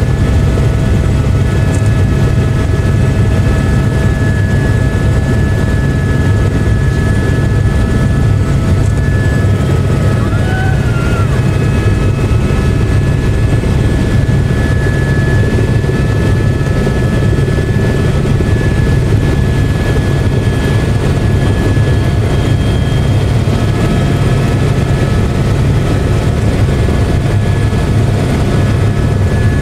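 Helicopter in flight heard from inside the cabin: a steady, loud drone of the rotor and engine, with several thin, steady whining tones above it.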